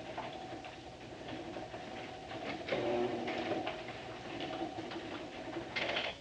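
Steady mechanical rumble with a run of irregular clicks and knocks, growing louder about three seconds in.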